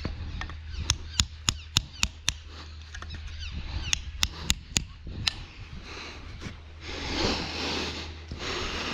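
Two runs of sharp, evenly spaced knocks, about three or four a second, followed near the end by a rustling.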